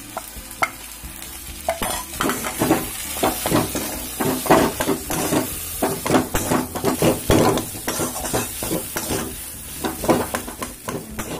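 Metal spatula stirring and scraping a mashed potato and capsicum stuffing in a metal kadai, with quick, repeated scrapes and knocks against the pan over a light sizzle of frying. The strokes come thick and fast from about two seconds in.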